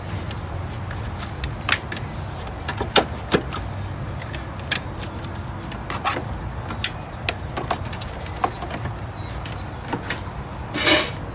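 Scattered sharp clicks and knocks of plastic clips and parts being handled and worked loose around a car's fuse box in the engine bay, over a steady low hum, with a short louder rasp near the end.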